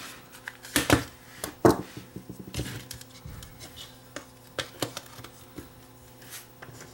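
Sharp clicks and knocks from the small metal-and-plastic case of a Sony WM10 Walkman being handled and pressed together by hand. The loudest come about a second in and again shortly after, followed by lighter scattered taps, over a faint steady hum.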